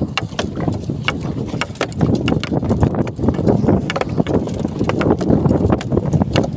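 Wind buffeting the microphone and water rushing past a small boat at sea, with frequent sharp knocks and rubbing from a phone held against the body.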